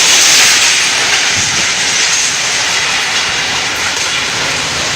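Strong storm wind, a loud steady rushing hiss.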